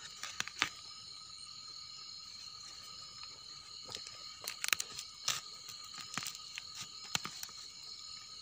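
Scattered sharp clicks and crackles of hands handling freshly picked termite mushrooms and dry twigs, in clusters near the start and around the middle, over a steady high-pitched chorus of night insects.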